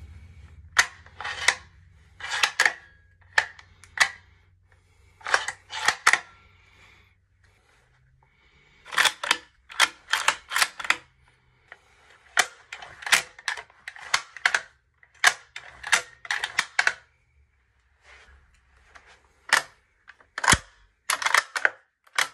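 Bolt-action rifles, a Savage Axis and then a Remington 700, being cycled by hand again and again: sharp metallic clicks and clacks as the bolt is lifted, drawn back, pushed forward and locked down, in short groups with brief pauses between. One heavier, deeper clack comes about twenty seconds in.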